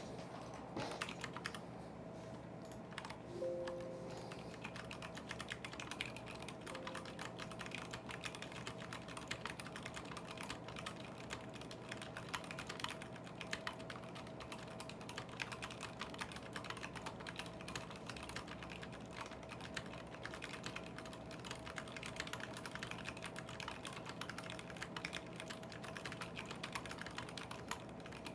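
Continuous typing on a KBD75v2 custom mechanical keyboard with stock 78 g Zealios v2 tactile switches, an aluminium plate with foam and PBT keycaps: a dense, uneven run of keystroke clacks.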